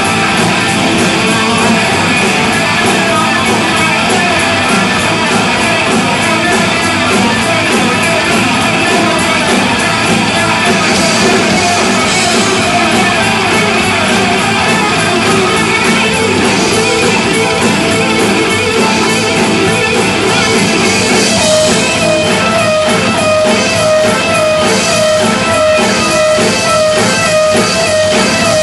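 Live rock band playing loud and dense, with an electric guitar lead over a Hammond XK3 organ. About three-quarters of the way through, a fast run of rapidly repeated notes comes in on a high pitch.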